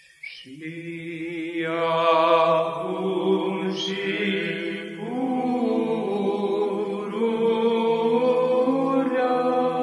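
Byzantine psaltic chant in the fifth tone sung by monks: a slow melodic line over a steady low held drone note (the ison). It comes in about half a second in after a brief pause.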